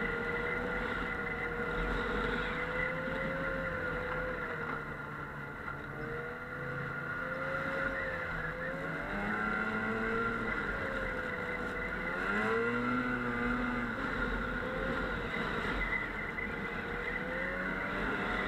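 Snowmobile engine running under way, its pitch rising and falling several times as the throttle changes, with a steady high whine over it.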